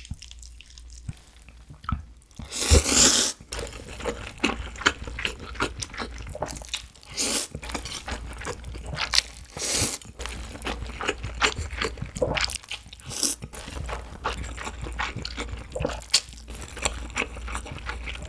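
Close-miked eating: slurping spicy bibim noodles and chewing. The loudest slurp lasts about a second, starting near three seconds in, and shorter slurps and smacking chews follow.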